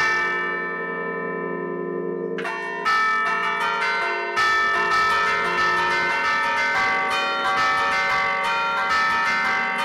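Church tower bells played from a baton keyboard, each lever pulling a chain that sounds a bell, ringing out a tune. The ring of earlier notes dies away first, fresh strikes come in about two and a half seconds in, and from about four and a half seconds a quicker run of notes follows.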